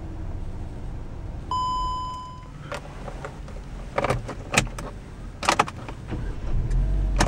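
A 2018 Hyundai Elantra's 2.0-litre four-cylinder idling steadily just after startup, a low hum. About a second and a half in, a single electronic chime sounds for about a second. Several sharp clicks and knocks come from handling inside the cabin, the loudest near the end.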